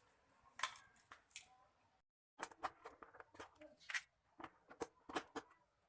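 Faint, irregular clicks and taps of hands handling AA batteries and a plastic wall clock's battery compartment. The sound cuts out briefly about two seconds in, and a quicker run of clicks follows.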